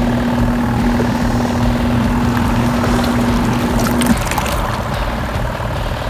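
Kuppet Mini portable washing machine running its wash cycle: a steady pulsator motor hum over churning water, the hum cutting off about four seconds in as the alternating pulsator pauses between directions.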